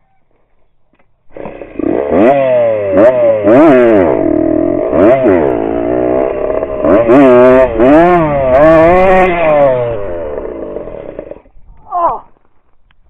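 Dirt bike engine with a straight copper-pipe exhaust and no silencer, loud, its pitch rising and falling again and again as it is revved and ridden through the throttle. It cuts in about a second in and dies away shortly before the end.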